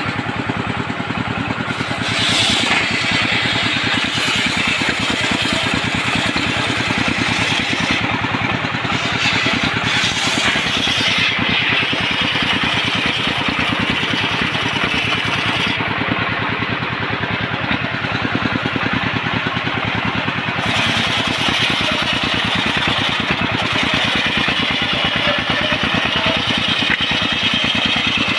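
Homemade engine-driven circular saw running steadily, its engine pulsing in a fast even beat, with the sound brightening into a higher hiss for a few seconds at a time as the blade cuts through jackfruit timber.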